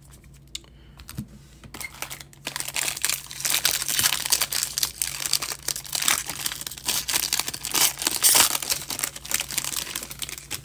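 Foil trading card pack being torn open and its wrapper crinkling, a dense crackle that starts about two and a half seconds in and keeps going.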